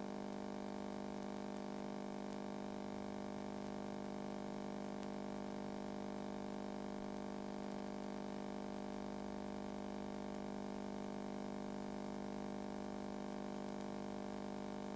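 A steady, unchanging low electronic drone: one sustained tone with many overtones, holding the same pitch and level throughout.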